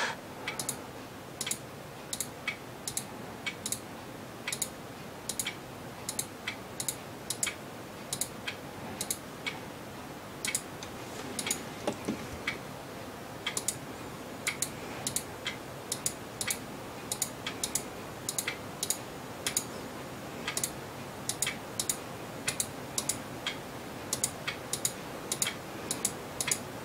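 Computer mouse clicking: short, sharp clicks about one to two a second, some in quick pairs, over a faint steady hiss.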